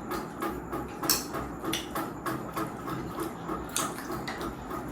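Eating noodles, with irregular wet chewing sounds and a few short slurps.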